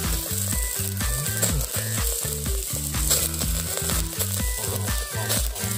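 Butter sizzling and crackling as it melts and burns on a maitake mushroom grilling over charcoal, with low pitched tones that change every fraction of a second underneath.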